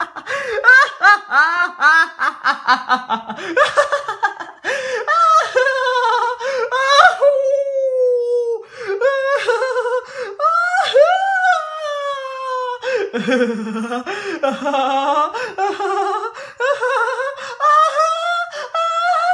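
A person laughing hard in a high voice: quick bursts of laughter at first, then long drawn-out laughs that rise and fall in pitch.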